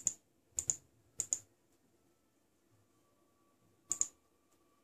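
Computer mouse button clicked four times, each a quick press-and-release pair of clicks: three in the first second and a half, one about four seconds in.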